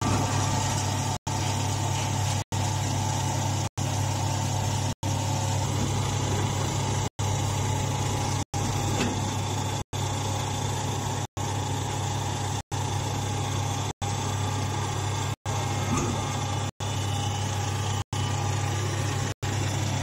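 A hydraulic straw baler's motor and pump running with a steady low hum. The sound cuts out completely for an instant about every second and a quarter.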